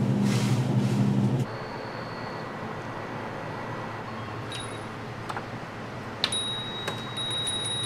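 A loud, steady low hum cuts off about a second and a half in, leaving quiet background noise. Near the end a glass shop door opens with a sharp click, and a steady, high entry chime rings for about two seconds.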